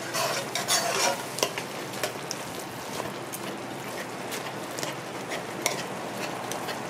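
Metal spoon stirring and mashing thick stewed pumpkin in a metal pot, with short scrapes and clicks against the pot, over the steady sizzle of the simmering stew.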